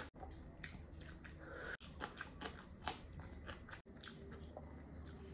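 A person eating chicken curry, chewing and biting with soft, irregular clicks and wet smacks.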